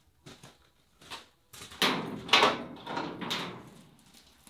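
Door of a metal-framed shed being handled and opened: a few small clicks at the latch, then a louder stretch of door noise over about two seconds that fades away.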